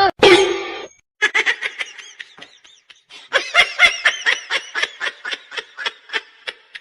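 A person laughing hard in quick, repeated high-pitched bursts, after a short loud vocal sound in the first second.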